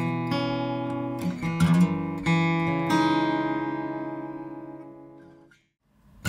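Cutaway acoustic guitar played with a pick: a few picked and strummed chords, then a last chord left to ring and fade to silence about five and a half seconds in. It is recorded unprocessed through an on-camera shotgun mic about 50 cm from the guitar.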